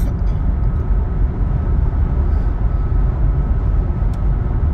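Steady low rumble of road and tyre noise heard inside a moving car's cabin at highway speed.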